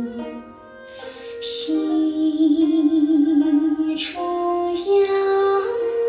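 Female vocalist singing a slow Chinese art song, long notes held with vibrato over instrumental accompaniment, with sharp struck notes about 1.5 and 4 seconds in.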